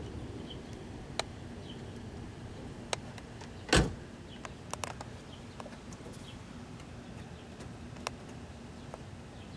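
Scattered light clicks and one sharp knock about four seconds in, over a steady low background hum.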